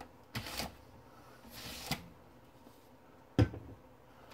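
Butcher paper rustling and sliding in two short strokes as it is smoothed down over a towel on a heat press platen, then a sharp knock near the end.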